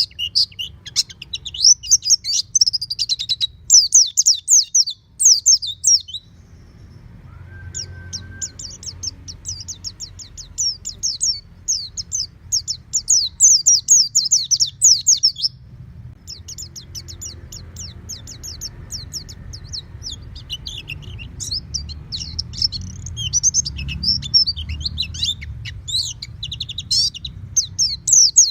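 White-eye (pleci) singing long, rapid phrases of high twittering chirps, with short breaks about six and sixteen seconds in. A low steady hum runs underneath.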